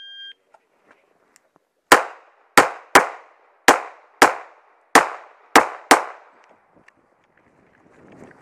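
A shot timer's start beep, then a pistol firing eight quick shots in about four seconds in a rapid uneven string. Rustling of movement through brush follows near the end.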